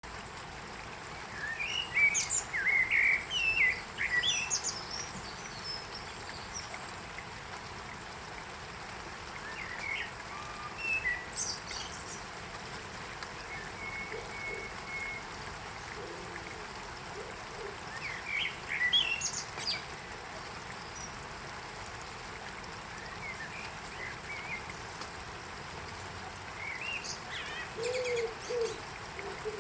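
Songbirds chirping and warbling in short bouts, about four times, over a steady hiss of light rain falling on leaves.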